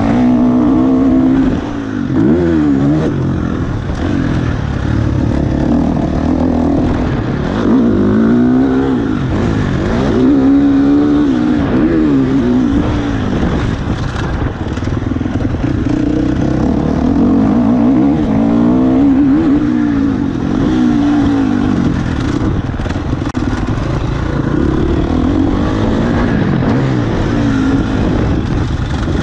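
KTM 350 SX-F single-cylinder four-stroke motocross engine under hard riding, its pitch rising and falling again and again as the throttle is opened and closed. It briefly drops off about one and a half seconds in.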